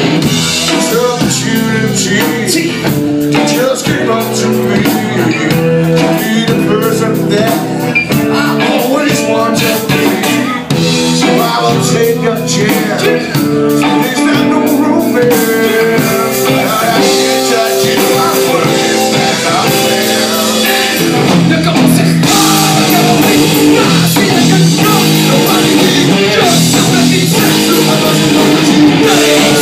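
Live rock band playing loudly: electric guitar, bass guitar and a drum kit, with some singing.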